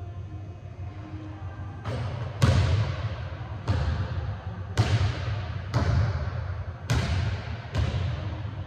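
Basketball bouncing on a hardwood gym floor, starting about two seconds in and then about once a second, each bounce echoing around the hall.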